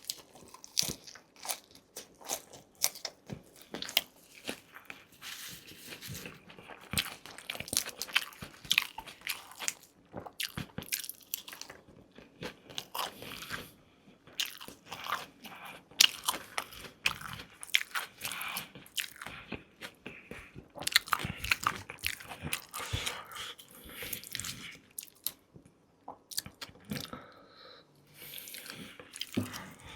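Close-miked eating sounds: a steady run of crunchy bites and wet chewing, with sharp crackling clicks, thinning out for a few seconds near the end.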